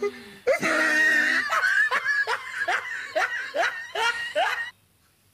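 A woman laughing hard in a run of about eight short bursts, each rising in pitch, that stops abruptly near the end.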